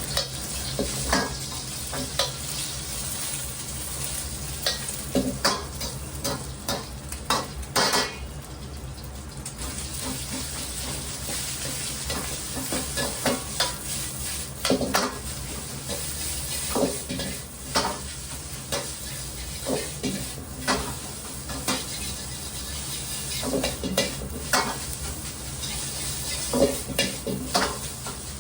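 Fried rice sizzling in a hot pan, with a metal utensil scraping and knocking against the pan at irregular intervals as it is stirred and tossed.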